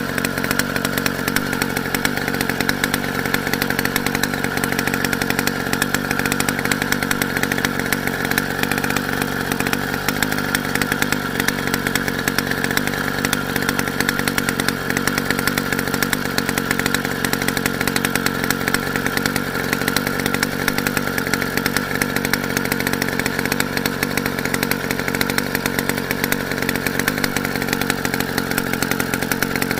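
Motorized bicycle's small engine running steadily at an even pitch, with a fast, buzzing firing pulse.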